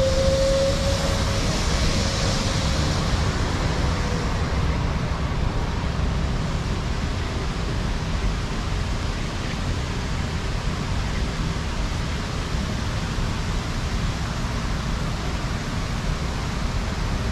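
Steady city traffic noise on a wet street, with a vehicle's hum fading away over the first few seconds.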